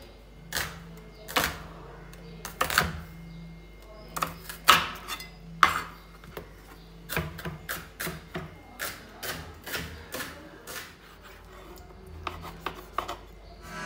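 A knife chopping vegetables on a cutting board: a run of sharp, irregularly spaced knocks, some louder than others.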